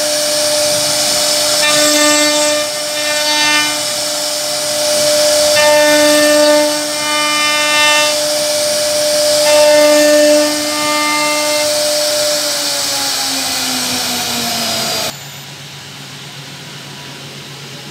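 CNC router spindle running with a steady whine while the bit carves wood, the cutting sound swelling and easing every couple of seconds. Near the end the whine falls in pitch as the spindle slows, then the sound drops suddenly to a low hum.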